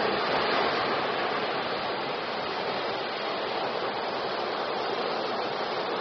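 Ocean surf breaking on a beach: a steady rush of churning water, loudest in the first second and swelling again near the end.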